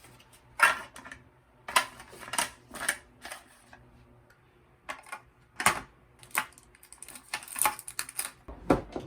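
Small hard objects being handled and set down on a dressing table during tidying: about a dozen irregular sharp clicks and knocks, some spaced closely, others a second or more apart.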